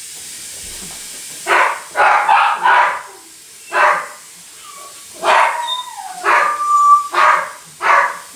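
A dog barking repeatedly, about ten short loud barks in uneven groups, with a brief high whine in the middle.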